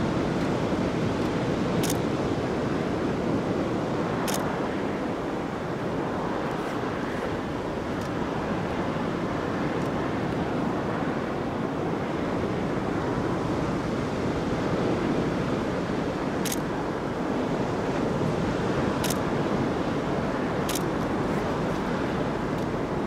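Steady wash of ocean surf and wind blowing on the microphone, with five sharp high clicks scattered through.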